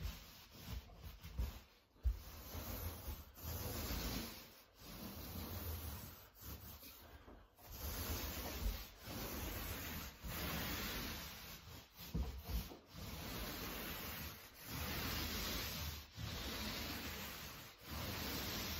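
Extra-wide paint roller on an extension pole rolling paint onto a wall: repeated strokes, each a second or two of rubbing hiss with short breaks between, and a knock about two seconds in.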